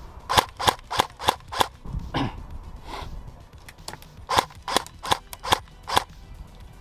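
Airsoft gun firing single shots: a string of about five sharp snaps at roughly three a second, a pause, then another string of about five from about four seconds in.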